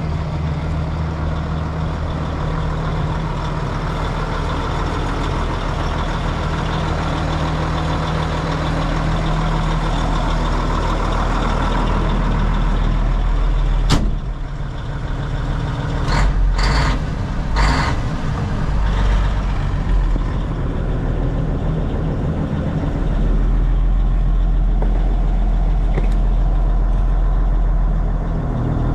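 1988 Mack DM690S water truck's diesel engine idling steadily. About halfway through there is one sharp knock, and three brief sharp noises follow a couple of seconds later. The low engine note is heavier in the last few seconds.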